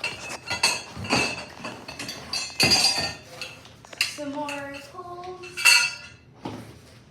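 Metal parts of a Halloween animatronic prop clinking and knocking together as they are handled and pulled from the box: a string of sharp clinks, each with a short metallic ring.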